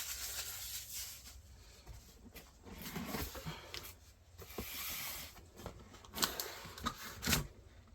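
Rustling and crinkling of paper and plastic packaging in short bursts, with a few light clicks and taps, as items are handled and taken out of a boxed merchandise set.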